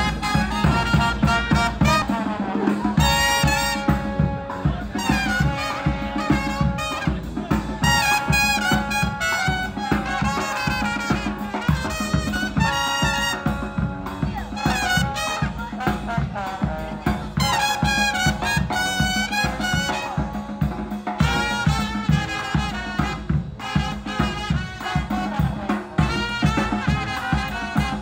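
Brass band music: trumpets and trombone playing a lively jazz tune over a steady drum beat and a low bass line.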